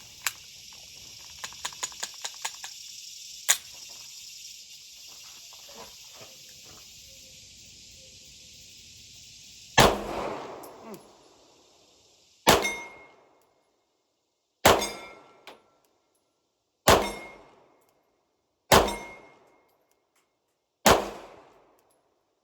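Six single shots from a Glock 45 9 mm pistol fired slowly, about two seconds apart, in aimed bullseye fire at a steel plate, with a faint ring after the shots. Light clicks of handling the pistol come first.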